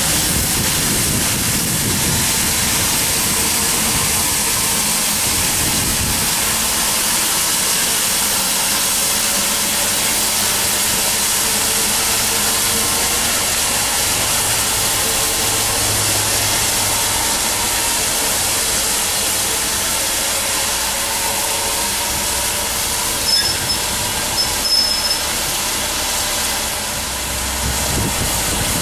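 LMS Fowler 4F 0-6-0 steam locomotive No.44422 hissing steadily with escaping steam, with a few brief high squeaks about two-thirds of the way through.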